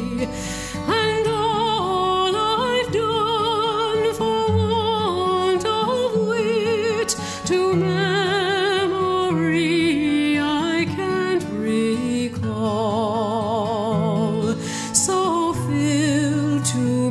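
Background music: a sustained melody with heavy vibrato over held low notes.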